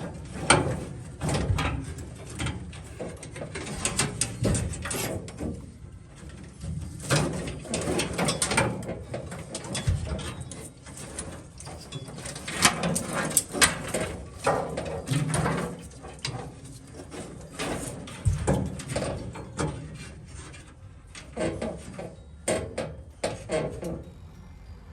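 Irregular clicks, knocks and rattles of hand tools and metal parts being handled while the old wiring harness is taken out of a 1966 Chevy C10.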